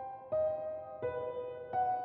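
Slow solo piano background music: single notes struck about every three-quarters of a second, each ringing on as it fades.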